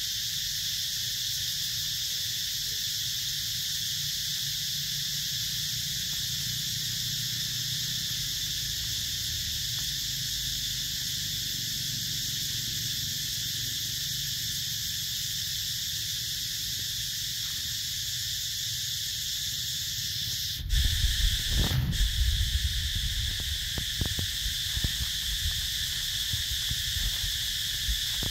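Steady high-pitched buzzing of an insect chorus. About twenty seconds in, a sudden louder low rumble with rustling and a few knocks cuts in for a few seconds.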